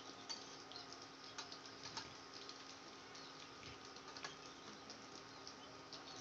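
Egg-and-potato pakoras deep-frying in hot oil in a steel pan: a faint sizzle with scattered, irregular crackles and pops.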